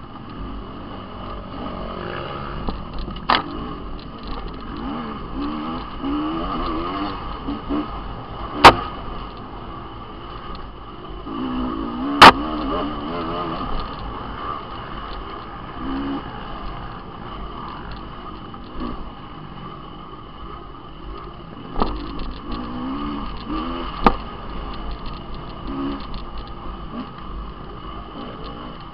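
Dirt bike engine revving up and down as it is ridden over rough, rutted trail, heard from an onboard camera, with several sharp knocks from bumps jolting the bike and camera.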